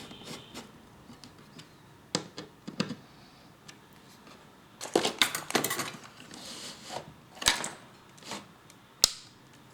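Scattered small metallic clicks and clatter as screws are fitted and tightened with a tool, with a busier cluster of clattering in the middle and a sharp click near the end.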